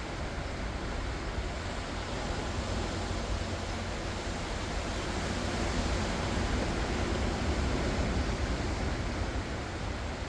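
Ocean surf washing in: a steady rushing hiss over a low rumble, swelling a little past the middle and easing near the end.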